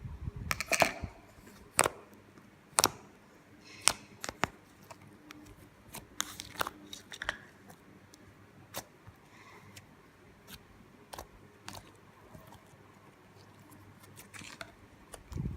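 Slime being poked and squeezed by hand, giving irregular sharp clicks and pops, about one a second.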